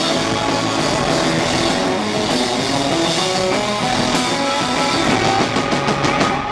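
Rock band playing live: electric guitars over a drum kit, loud and dense throughout.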